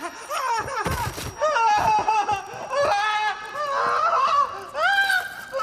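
A man screaming in pain, one wavering, high-pitched cry after another.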